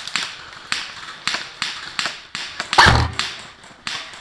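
Custom SR25 airsoft rifle firing one semi-auto shot: a loud thump about three seconds in, over a run of sharp clicks at about three a second.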